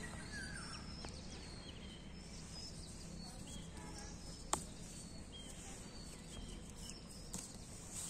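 Faint outdoor background with scattered short bird chirps, and one sharp click about four and a half seconds in.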